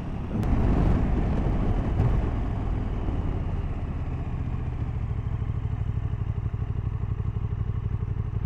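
KTM 1290 Super Duke GT's V-twin engine running, with a louder rush of wind and road noise in the first two seconds, then settling to a steady, even engine beat.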